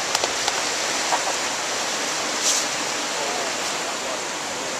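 Whitewater rapids of a stream rushing steadily.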